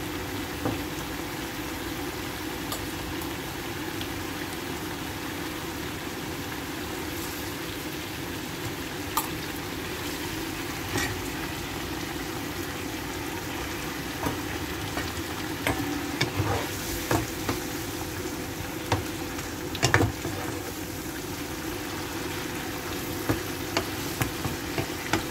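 Spiced sauce simmering and bubbling in a frying pan, a steady low hiss and bubble. Scattered clicks and knocks through the second half as pieces of fish are laid into the sauce and the pan is handled, over a faint steady hum.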